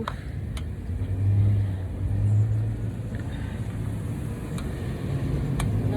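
A low engine hum that swells and fades and swells again, with a few light clicks over it.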